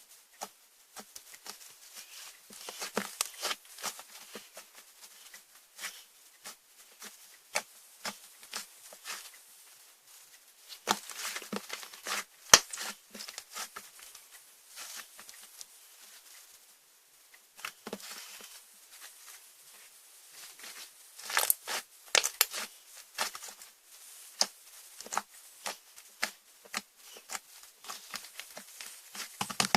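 Slime being kneaded and stretched by hand: irregular sticky pops, clicks and crackles that come in thicker clusters now and then, with one sharp pop louder than the rest about twelve seconds in.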